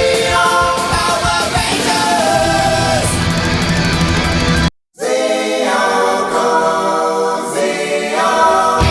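Background rock music with singing. It cuts out completely for a moment about halfway through, then carries on with voices and no bass or drums until they come back at the end.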